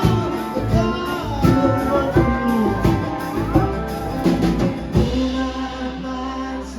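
Live band music with drums and pitched instruments, some notes gliding in pitch; the drums drop out about five seconds in, leaving held notes.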